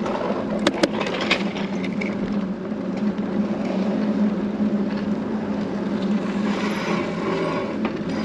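Vehicle engine and tyre noise heard from inside the cab while driving slowly, a steady hum with a few sharp clicks about a second in.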